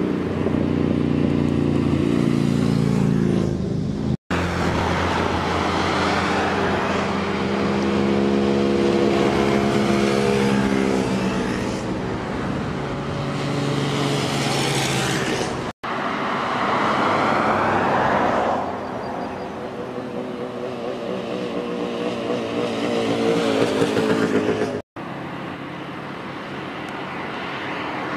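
Motorcycles and then an old car driving past one after another, their engines approaching and passing with pitch and loudness rising and falling. The sound cuts out abruptly three times, about a third of the way in, past halfway, and near the end.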